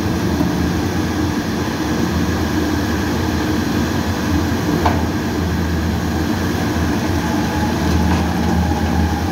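Electric-motor-driven dual-shaft shredder for hard paper-core tubes running, a steady heavy low drone of its motors and gearbox. A single sharp crack comes about halfway through.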